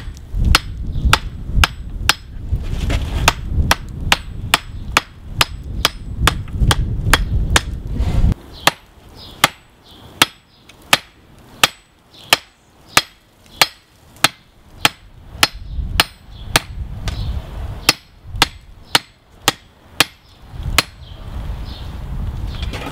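Blacksmith's hand hammer striking a red-hot railroad-spike axe head on a steel anvil: steady blows about two a second, each a sharp metallic clang with a short ring. The hammering stops about 21 seconds in.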